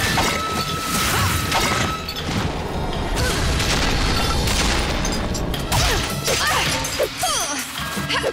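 Cartoon fight sound effects: a rapid run of hits, crashes and a boom over action background music.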